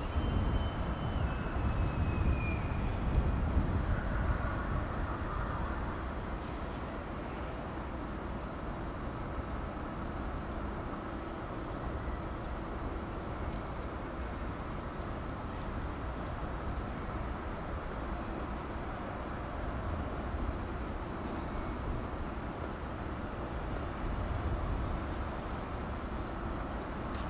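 Steady outdoor background noise with a low rumble, louder for the first few seconds, and a brief falling whistle near the start.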